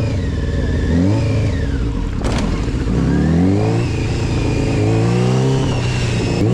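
Small motorcycle engine revving up and falling back in repeated surges of throttle as the rider lifts the front wheel into short wheelies. A sharp knock sounds about two seconds in.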